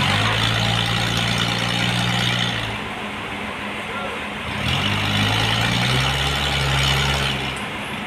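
Engine-driven sawmill running through a trembesi log, its engine note steady with two louder spells of about three seconds each, the second a little higher in pitch.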